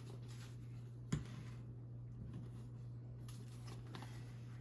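Quiet room tone with a steady low electrical hum and a single sharp click about a second in.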